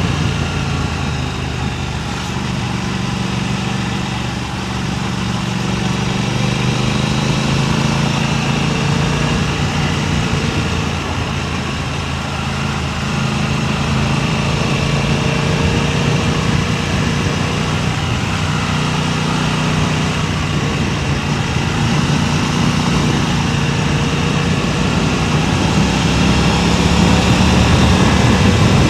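A vehicle engine running steadily, its pitch drifting slightly, under a constant rush of wind noise on a DJI Mic Mini wireless microphone.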